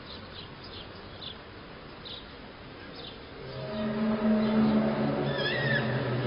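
A low, steady hum with a couple of strong pitched tones fades in about halfway and grows louder. Faint high chirps come earlier, and a short wavering high call sounds near the end.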